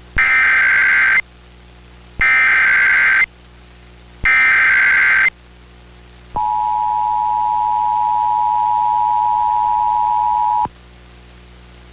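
Emergency Alert System broadcast tones: the SAME digital header sent three times as one-second bursts of warbling data tones, then the steady two-tone attention signal held for about four seconds. Together they herald a tornado warning.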